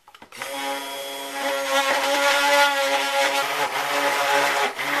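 Electric immersion (stick) blender running steadily in a pitcher of soap batter, mixing the colored batter. It starts about a third of a second in and is briefly switched off and on again near the end.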